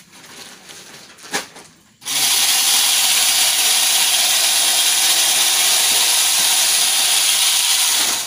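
Loud, steady machine noise, full of hiss with a faint steady hum beneath, starting suddenly about two seconds in and cutting off suddenly at the end.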